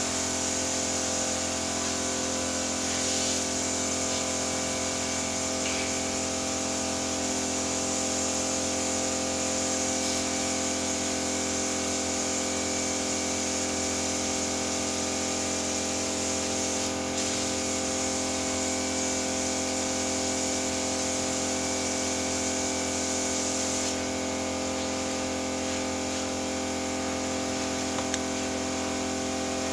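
Paint-shop compressed-air equipment running: a steady mechanical hum with a constant hiss of air, unchanging throughout.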